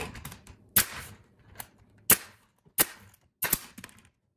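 Pneumatic nail gun firing nails through shoe molding, a series of about five sharp shots less than a second apart.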